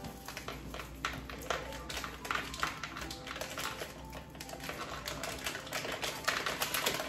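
A rapid, irregular run of light taps and clicks.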